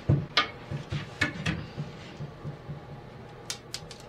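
Screwdriver working on old metal hardware on a wooden cabinet door: scattered light clicks and taps as screws and a hinge are loosened, with a small run of clicks near the end.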